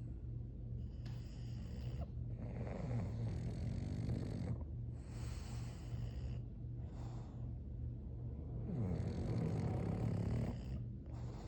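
English bulldog snoring in its sleep: a noisy snoring breath every second or two, with short gaps between them. A steady low hum runs underneath.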